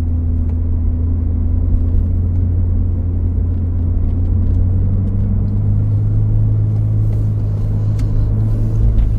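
Toyota Supra Mk4's 2JZ straight-six engine and road noise while driving: a steady low drone that steps up a little in pitch about halfway through. The engine runs smoothly, without shaking, on a new timing belt and auxiliary components.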